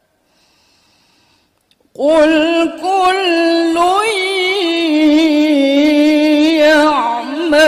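A woman's voice reciting the Quran in melodic tilawah style. After near silence it comes in suddenly about two seconds in, with long, wavering, ornamented held notes.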